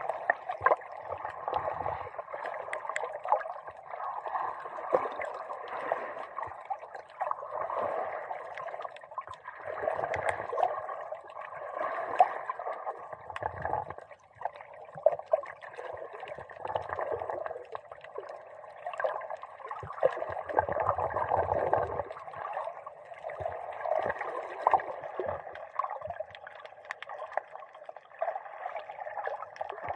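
Underwater sloshing and gurgling heard muffled through a camera's waterproof dive case, with deeper surges every few seconds.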